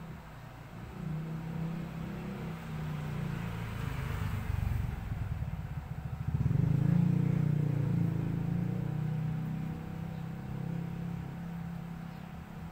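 A motor vehicle's engine rumble passing by, building to its loudest about six to seven seconds in and then slowly fading.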